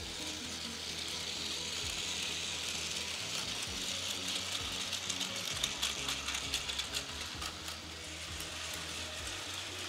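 Plarail Shiki-shima toy train running on plastic track: the whirring of its small battery motor and gears, with rapid clicking of the wheels over the track. The train is loudest and clicks most from about four to seven seconds in, as it passes close.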